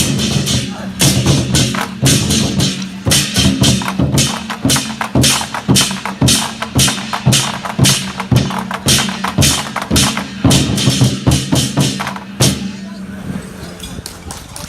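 Chinese war drums beaten hard in a fast, dense rhythm by an ensemble, breaking off with a last accented stroke near the end.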